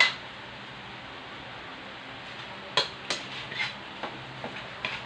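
A metal utensil clinking and scraping against a frying pan as corned beef and egg are stirred, over a steady frying sizzle. One sharp clink at the start, then a run of several clinks a few seconds in.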